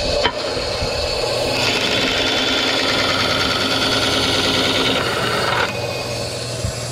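Bandsaw blade cutting through a ring of 4-inch PVC pipe: a steady cutting noise that grows about a second and a half in and cuts off suddenly near the end, over the steady hum of the saw's motor.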